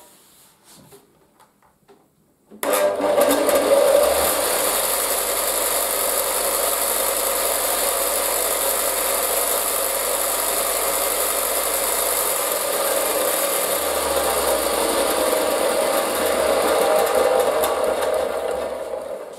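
Parkside PSBS 240 C2 combined bench grinder and belt sander with a 240-watt motor switched on about two and a half seconds in: it starts abruptly and runs steadily at no load with a hiss and a low hum. Near the end it is switched off and winds down.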